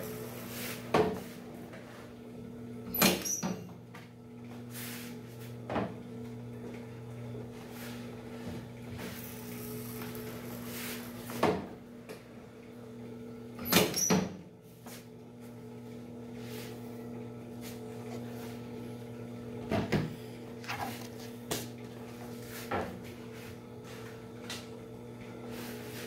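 Portable edgebander running with a steady hum while a wooden shelf panel is fed along it. Sharp knocks and clacks come at irregular moments, loudest about three and fourteen seconds in, as the board is handled and bumped against the machine's table.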